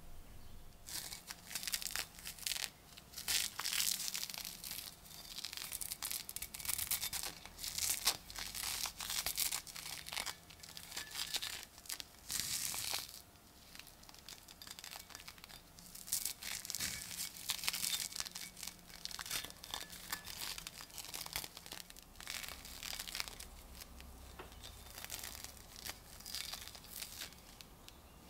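Gloved hands handling a heavily rusted iron axe head: cloth work gloves rubbing and scraping over the rough, crusted rust in irregular scratchy, rustling strokes.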